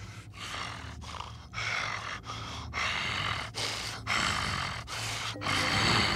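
Heavy, rhythmic animal breathing from a sleeping beast, about one to two breaths a second, over a low steady music drone.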